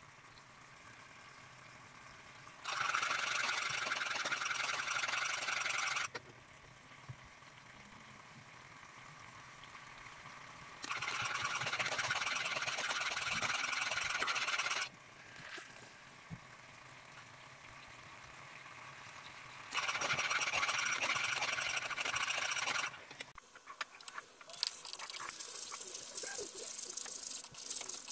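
Coconut cream boiling down in a pan, bubbling and crackling as it reduces toward latik. Three stretches of loud steady hiss, a few seconds each, start and stop abruptly, and a thick crackle of popping bubbles runs through the last few seconds.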